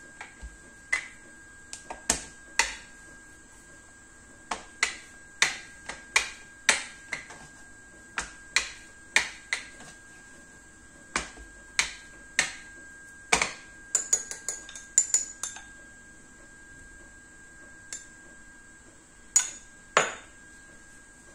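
Irregular sharp knocks and clacks of a rolling pin on a plastic cutting board as dough is rolled out thin, about one or two a second, with a quick run of lighter clicks about two-thirds of the way through.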